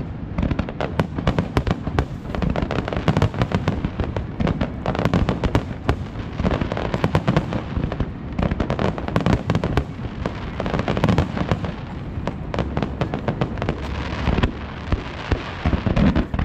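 Aerial fireworks display: a dense, continuous run of shell bursts and crackling reports, many bangs a second.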